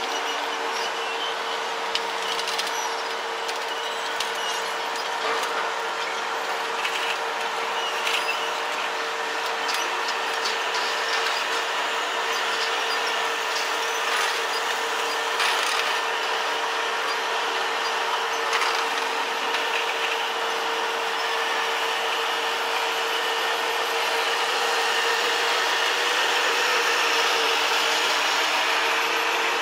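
Heavy-haul modular transporter carrying a long steel pipe pile, running steadily with a constant mid-pitched hum and scattered clicks and creaks, growing slightly louder near the end.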